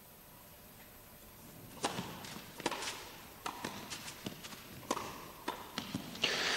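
Tennis ball being played in an indoor hall: a series of sharp racket strikes and ball bounces that begins about two seconds in and comes roughly once or twice a second.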